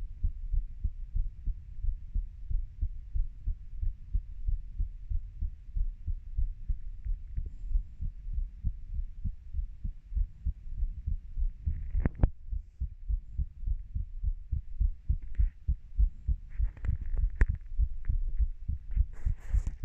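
Human heartbeat picked up close to the chest: a steady run of regular low beats. A sharp click comes about twelve seconds in, and brief scratchy noises come near the end.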